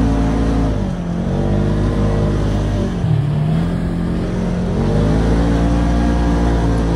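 Vehicle engine running under acceleration. Its pitch drops sharply and climbs again twice, about a second in and about three seconds in, then holds steady.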